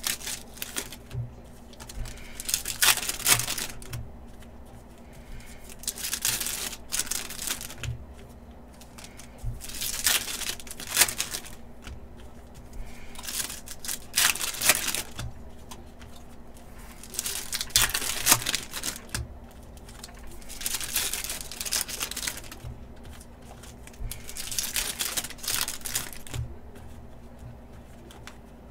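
Foil wrappers of Panini basketball card packs crinkling and tearing as the packs are ripped open one after another, a burst of crackling every three to four seconds.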